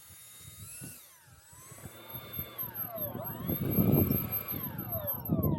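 Concept X radio-controlled model helicopter in flight, its high motor-and-rotor whine sliding down and up in pitch several times as it manoeuvres, with a low rumble swelling near the middle and end.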